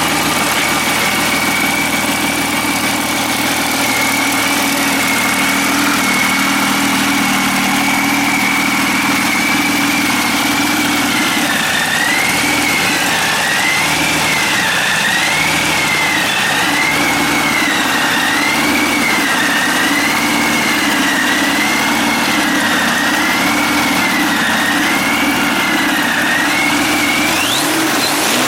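Ranger V-12 aircraft engine running at a steady speed, then its speed rising and falling about once a second from around eleven seconds in, with a brief rise near the end.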